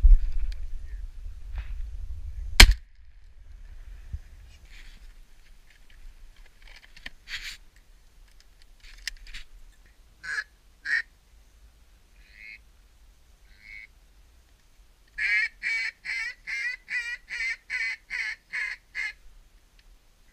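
A 12-gauge shotgun shot about three seconds in. Later, scattered single duck quacks are followed near the end by a run of about ten evenly spaced quacks.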